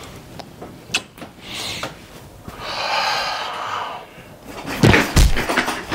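A few light clicks, then a rustling noise in the middle, then a heavy thud with knocks about five seconds in, like something being bumped or a door.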